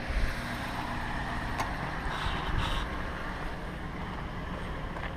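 A steady low rumble and hiss, with a couple of crunching footsteps on gravel about two and a half seconds in.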